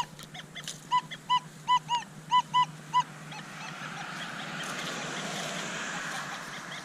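Nokta Legend metal detector giving a quick run of about eight short, same-pitched beeps in the first three seconds as the coil sweeps over targets, which the detectorist takes for aluminium can slaw. A soft steady hiss follows.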